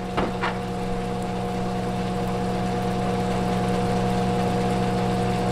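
Chicken and butter frying in a skillet, a soft sizzle that slowly grows louder as the butter starts to bubble, over a steady appliance hum.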